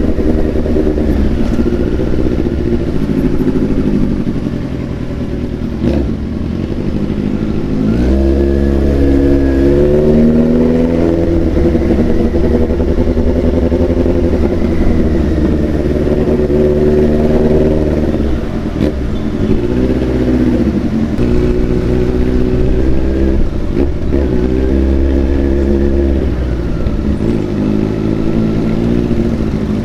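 Large-displacement motorcycle engine being ridden, revving up and easing back off several times, with the clearest rises in pitch about eight, nineteen and twenty-six seconds in.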